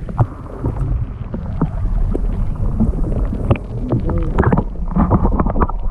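Strong wind buffeting the microphone on a small fishing boat, a constant low rumble broken by irregular knocks.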